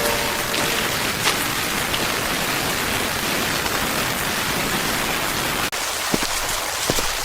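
Steady rain falling, an even hiss. About five and a half seconds in it cuts abruptly to lighter rain with separate drops striking.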